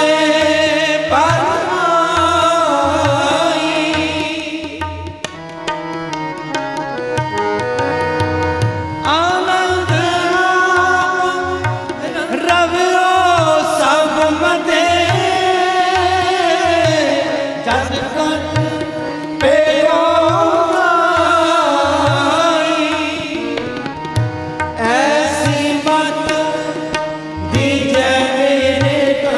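Sikh kirtan: voices singing a shabad together, accompanied by harmoniums and tabla. About five seconds in the voices stop for a few seconds while the harmoniums and tabla play on, then the singing returns.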